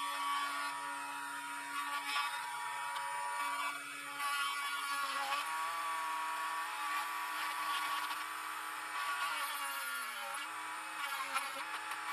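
Small high-speed mini drill whirring steadily as its bit bores component holes through a printed circuit board into a wooden backing block. Its pitch wavers near the end.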